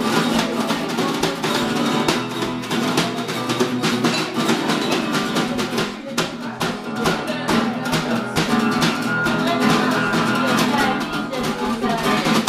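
Improvised blues jam: an acoustic guitar strummed in rhythm while a snare drum is played along with sticks, with a steady stream of quick strokes.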